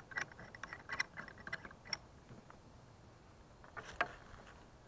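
Sectional staff being twisted into its mount on a magnetometer backpack: a run of quick, irregular clicks and ticks, then after a short lull a single sharp click about four seconds in.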